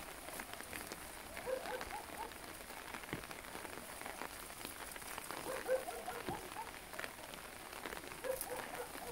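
Light rain pattering on umbrellas: a steady patter with scattered single drop hits.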